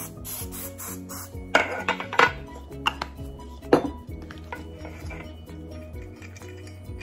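Metal muffin pans clattering as they are put down on a countertop and handled: a few sharp knocks, loudest between about one and a half and four seconds in, after a last short hiss of cooking spray at the start. Soft background music runs underneath.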